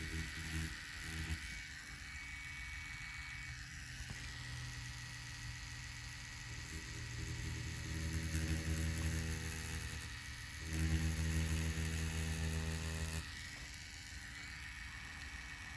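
FK Irons Spectra Flux rotary tattoo machine running with a steady motor hum as its liner needle works ink into orange peel. The hum grows louder and fuller about eight seconds in and again from about eleven to thirteen seconds, then drops back.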